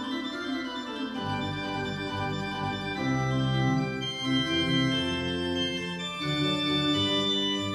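Church pipe organ playing slow, held chords that change every second or so.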